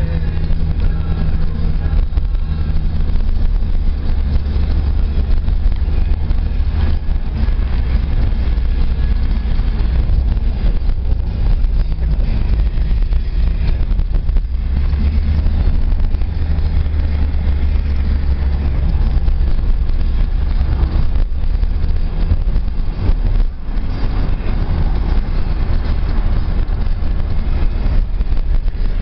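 A car driving along a road, heard from inside the cabin: a steady, loud low rumble of engine and road noise.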